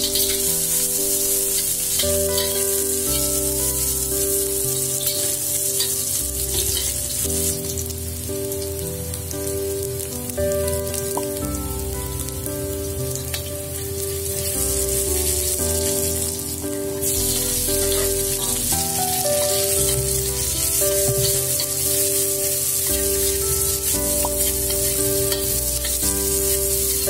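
Chopped garlic, shallots, shrimp paste and sliced red chilies sizzling in hot oil in a stainless steel wok as the spice paste is stir-fried until fragrant, with background music throughout.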